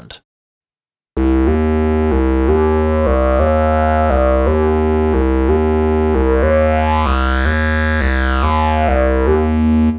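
A monophonic synth lead patch ('Caved Voice') plays a steady run of short notes over a held bass, starting about a second in. Late on its tone sweeps brighter and back down as its parameters are tweaked in real time, and it cuts off suddenly at the end.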